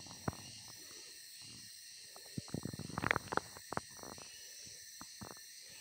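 Steady high-pitched insect chorus, with scattered sharp clicks and knocks that cluster about halfway through.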